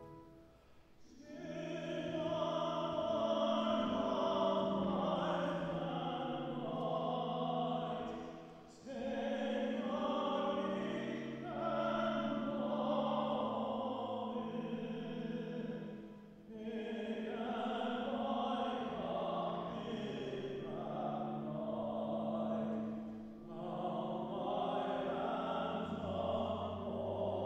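Choir singing a slow, sustained hymn in long phrases, with short breaks between phrases about every seven to eight seconds.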